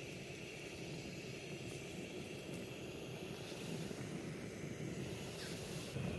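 Jetboil Zip canister gas stove burning, its burner making a steady, even rushing noise.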